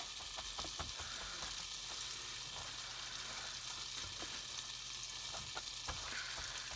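Butter sizzling steadily in a skillet, with faint scattered crunchy rustles of crushed Cap'n Crunch cereal as hands press it onto egg-soaked bread.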